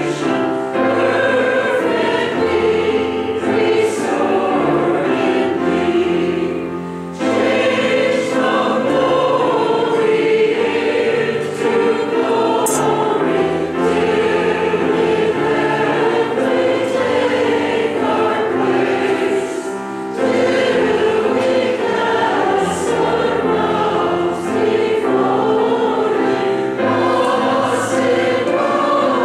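A choir singing, many voices holding long notes together, with two brief pauses between phrases.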